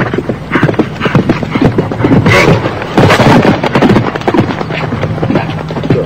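A horse galloping: a rapid, uneven run of hoofbeats, growing louder for stretches about two and three seconds in.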